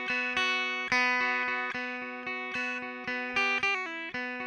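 Background music: a guitar picking a steady pattern of single notes over a held low note, a few notes a second.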